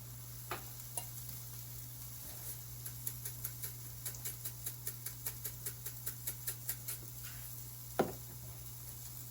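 Quiet cooking sounds at a stove: a steady low hum under a run of soft, regular ticks, about three a second, and one sharper click near the end.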